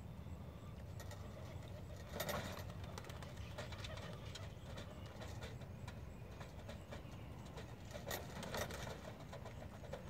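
Pigeons' wings flapping in two short flurries, about two seconds in and again near the end, as the birds fly onto and land on a kit-box trap, over a steady low background rumble.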